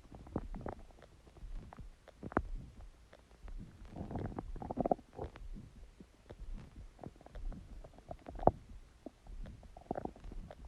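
Human stomach growling and gurgling: irregular gurgles and short sharp pops, with a longer gurgle a little before the middle and one loud pop past three-quarters of the way through.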